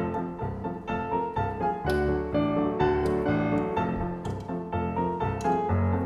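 Background piano music.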